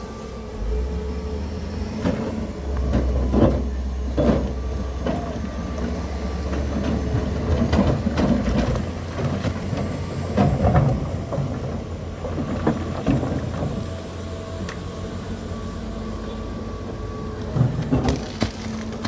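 John Deere 350G excavator's diesel engine working under load while its steel bucket digs and scrapes through loose stones and gravel, with repeated clatters and knocks of rock. The engine runs harder through the first half, then eases.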